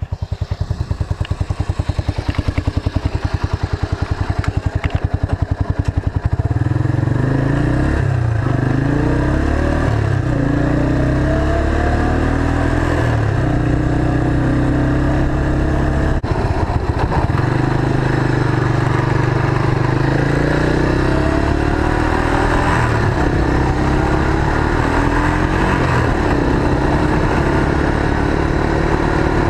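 Motorcycle trike engine running slowly with a throbbing beat for about the first six seconds, then pulling away louder, its pitch climbing and dropping back several times as it goes up through the gears.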